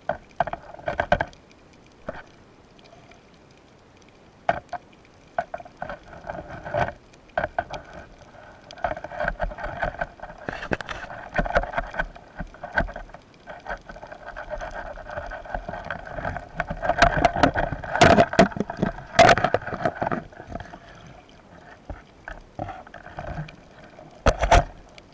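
Underwater noise picked up by a speargun-mounted camera: an uneven rushing with scattered clicks and knocks, loudest about two-thirds of the way through. Near the end a short burst of knocking comes as the gun is handled against the diver's wetsuit.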